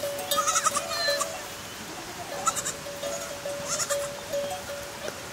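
Goats and kids bleating a few times, mostly in the first second and again midway, over a steady high tone that keeps breaking off and starting again.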